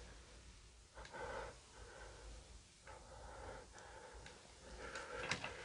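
Soft breathing close to the microphone: a few quiet breaths about a second apart, a little stronger near the end.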